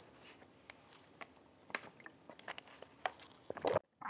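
Scattered small clicks and taps in a quiet room. A denser, louder run of clicks comes about three seconds in and cuts off suddenly.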